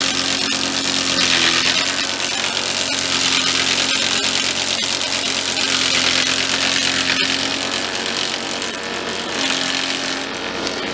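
Tractor-driven hydraulic machine spinning a Sydney blue gum log and shaving it down, a steady hiss of cutting over the hum of the tractor and its hydraulics, with a few sharp clicks.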